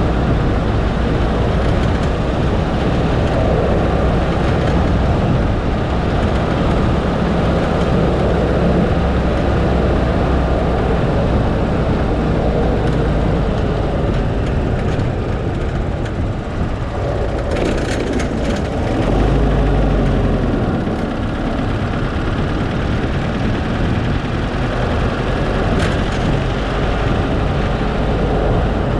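Car on the move: steady engine and road noise, with a few short knocks about two-thirds of the way in and a brief deeper swell of engine sound just after.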